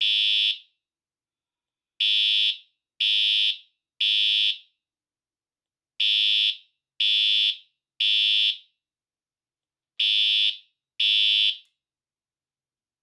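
Siemens U-MHU-MCS fire alarm horn sounding a high-pitched horn tone in the temporal-3 evacuation pattern: three half-second beeps, a pause, and again. It cuts off after the second beep of the last set.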